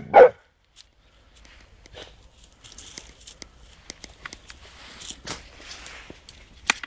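Footsteps of a person and a Newfoundland dog walking through dry grass and dead leaves: irregular soft crunches and rustles, starting about a second and a half in. A short loud sound comes at the very start.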